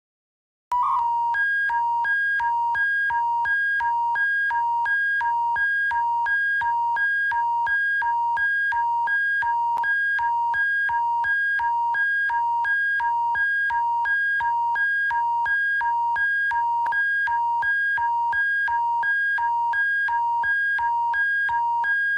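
Alberta Emergency Alert attention signal: a synthesized two-pitch alarm tone that starts just under a second in and pulses steadily about twice a second over a low hum.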